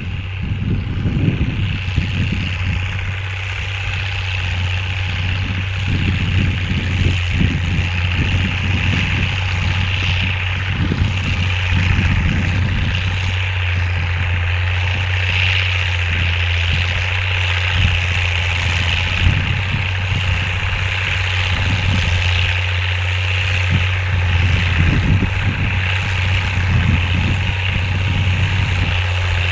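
Engine idling steadily with a low, uneven rumble.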